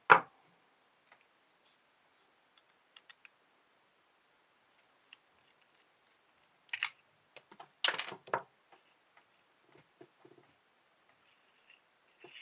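A sharp click, then scattered small clicks, with a busier run of clicking and scraping midway, from the metal insert of a Zippo-style petrol lighter being handled as its flint screw is unscrewed.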